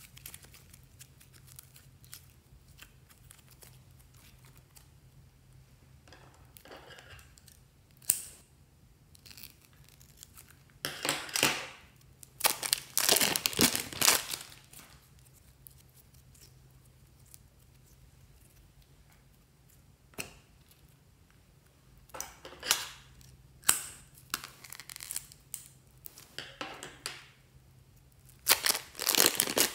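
Scissors cutting small plastic and rubbery toy pieces, with crinkling and snipping in scattered bursts between quiet stretches; the longest cluster comes around the middle.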